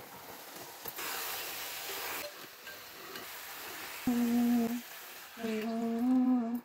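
Fried soya chunks tipped into a pan of hot masala gravy sizzle for about a second. Then, from about four seconds in, a person hums two short phrases, and the humming is the loudest sound.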